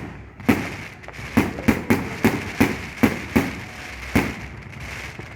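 Fireworks going off: about a dozen sharp bangs at irregular intervals over a steady background crackle, thinning out near the end.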